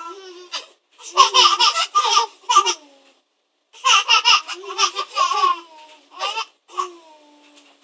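Baby laughing: two long runs of laughter, the first about a second in and the second at about four seconds, then a few short laughs.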